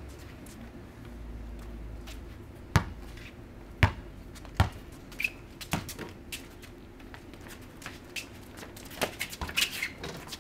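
Basketball bouncing on a concrete court: a few sharp, loud bounces about a second apart, then lighter irregular knocks and scuffs from the ball and sneakers as play goes on.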